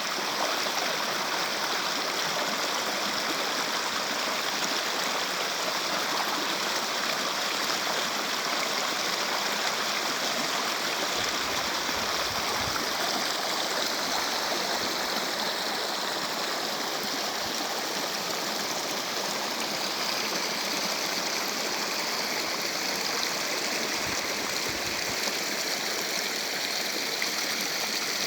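Steady rushing and gurgling of a flowing stream, unbroken and even in loudness.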